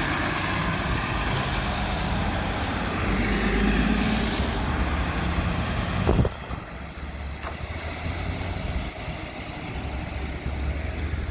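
Nova Bus LFS Artic hybrid bus heard from on board, running with steady engine and road noise. About six seconds in there is a sharp thump, after which the sound drops noticeably quieter to a low hum.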